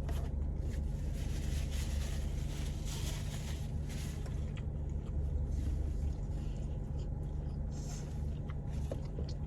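Steady low rumble of a car, heard from inside the cabin, with a few faint ticks.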